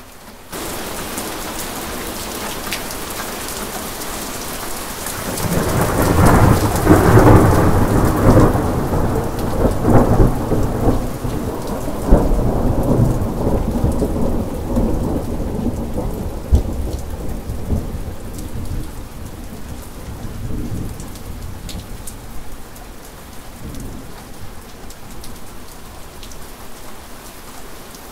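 Steady rain with a long roll of thunder. The rain steps up in loudness about half a second in; the thunder builds about five seconds in, rumbles at its loudest for several seconds, then fades away over the next ten seconds while the rain goes on.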